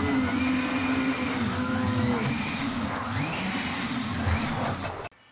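Large electric RC monster truck straining at full power against a rope. Its motor whines, the pitch wavering up and down with the load, over steady tyre noise on concrete. The sound cuts off abruptly about five seconds in.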